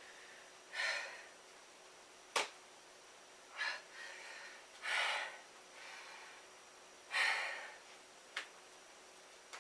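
A man breathing hard, catching his breath after a set of push-ups, with several loud breaths a second or two apart. A sharp click comes about two and a half seconds in, and another near the end.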